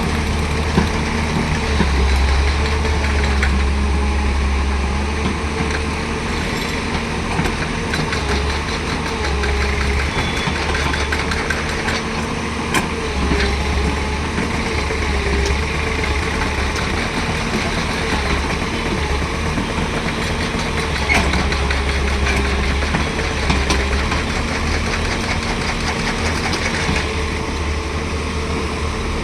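Excavator's diesel engine running steadily, its low drone swelling and easing every few seconds as the machine works, with a few short knocks.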